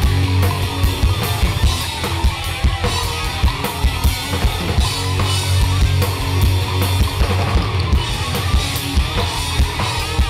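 Live rock band playing an instrumental break with no singing: a drum kit keeping a steady beat over heavy bass and guitar.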